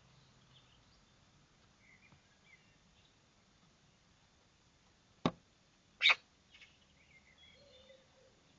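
Faint, scattered bird chirps, broken by two sharp clicks a little under a second apart about five seconds in.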